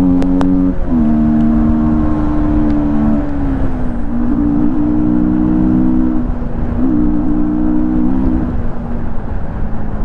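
Yamaha MT-15's 155 cc single-cylinder engine, running with an open air filter while the bike is ridden. Its note drops in pitch in two steps in the first few seconds, then rises and falls back twice as the throttle is opened and closed.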